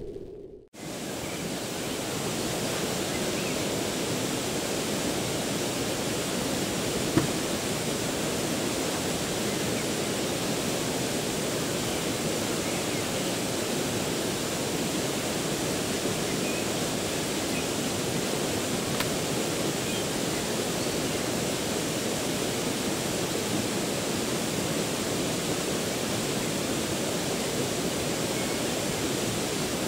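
Mountain river rushing over stones: a steady, even rush of water, with one light click about seven seconds in.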